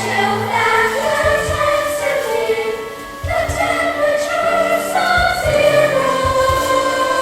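Chorus of young voices singing a musical-theatre number with accompaniment; the sound dips briefly about three seconds in, then comes back in.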